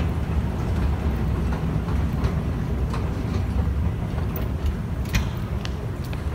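A steady low rumble of rail station ambience, with sharp clicks of footsteps on the hard stone floor that come more often in the second half.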